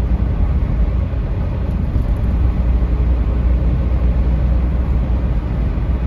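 Inside a moving car's cabin: steady low driving rumble of tyres on the road and the engine at cruising speed.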